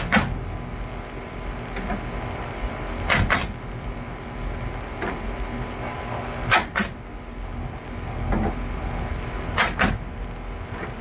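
Pneumatic coil nailer firing nails into wooden fence pickets at the rail: sharp shots in quick pairs, one pair every three seconds or so, four pairs in all, over a steady low hum.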